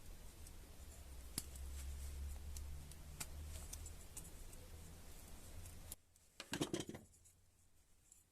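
Faint scattered clicks and light handling noises of small hard parts over a low hum; about six seconds in the background drops out abruptly, followed by a short cluster of clicks.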